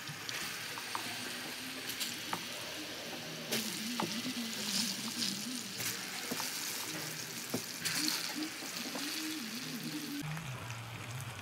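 Banana halves frying in hot oil in a pan: steady sizzling with scattered crackles and pops, getting louder about three and a half seconds in as more halves go into the oil.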